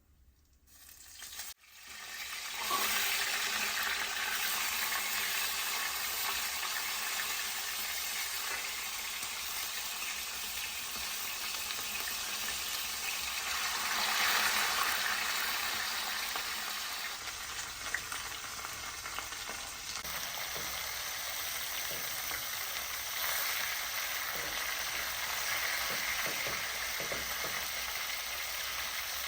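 Food frying in hot oil in a pan: a steady crackling sizzle that starts about two seconds in.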